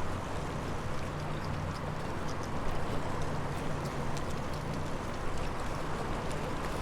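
Steady rushing noise of riding a bicycle: wind and tyre noise with a low hum underneath and faint scattered ticks.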